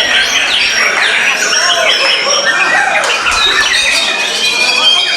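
Several white-rumped shamas singing over one another: a dense, unbroken stream of loud whistles, rapid trills and sweeping notes.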